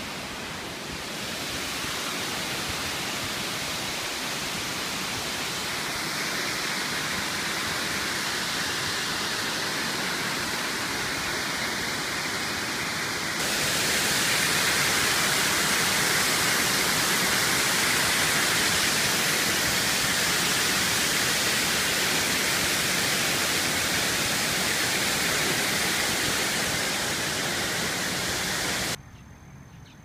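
Waterfall's rushing water: a loud, steady hiss of falling water that grows louder about a second in, again about six seconds in and again about halfway, then drops sharply to a much quieter rush near the end.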